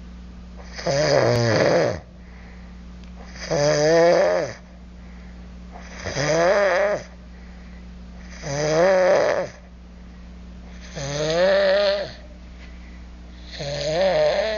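A man snoring loudly and rhythmically: six wavering snores, each about a second long, roughly every two and a half seconds, over a steady low hum.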